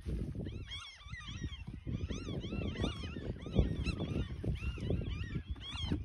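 Geese honking repeatedly, many short calls overlapping over a low rumble, with one low thump about halfway through.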